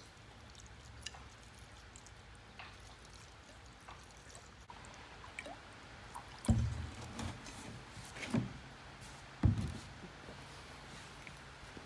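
Fuel pouring from a jug's spout into a new canister fuel filter to pre-fill it, spilling over onto the concrete floor. Three dull low thumps in the second half are the loudest sounds.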